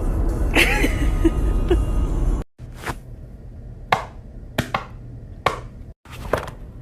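A steady low rumble that cuts off abruptly after about two and a half seconds, followed by five sharp taps or knocks at irregular intervals of under a second.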